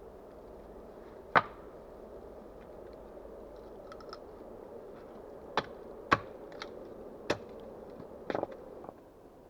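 An axe chopping wood: about five sharp, separate strikes at uneven spacing, the last a short rattling double knock.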